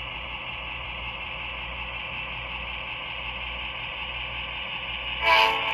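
The sound system of an HO-scale Atlas EMD SDP35 model plays a steady diesel engine sound through its small onboard speaker, with the very-heavy-load function switched on. A short, louder pitched sound cuts in near the end.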